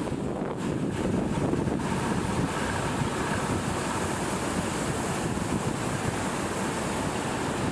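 The Sea Queen VII fishing boat's engine running steadily as the boat moves under way, with wind on the microphone.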